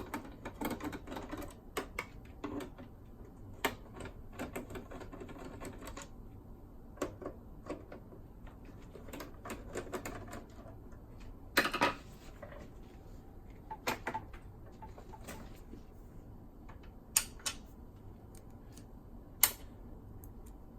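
Scattered small clicks and taps of a screwdriver working screws out of a plastic boombox case and the screws being handled, with a few sharper clicks in the second half.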